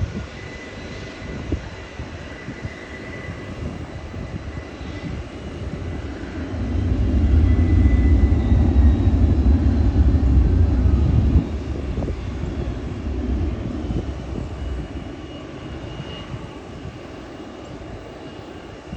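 Jet airliner passing low overhead on its landing approach: a steady high engine whine with a deep rumble that swells to its loudest for a few seconds, then drops and trails away.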